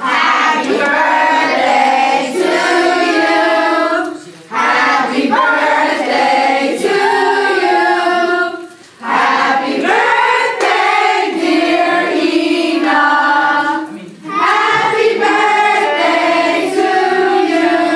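A group of people singing together in four phrases, each a few seconds long with a short breath between them.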